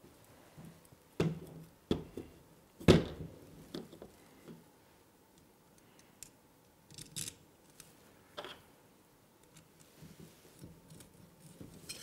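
Scattered small clicks and knocks of metal parts and hand tools: a rail mount, its backers and screws being fitted to an AR-15 handguard with a small screwdriver and an Allen wrench. The loudest knock comes about three seconds in.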